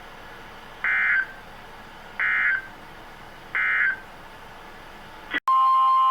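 NOAA Weather Radio end-of-message data bursts closing a tornado warning: three short electronic screeches about a second and a half apart, over faint radio hiss. Near the end, after a brief dropout, a loud steady alert tone starts, the weather radio's warning alarm tone heralding the next alert.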